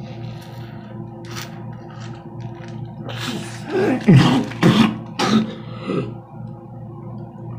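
A person makes a run of about five loud, explosive bursts of breath from nose and mouth into a tissue, like a fit of sneezing, between about three and six seconds in, over steady background music.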